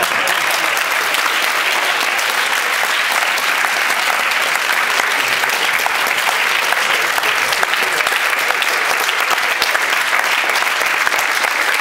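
An audience applauding steadily: many people clapping at once, a dense unbroken patter of claps.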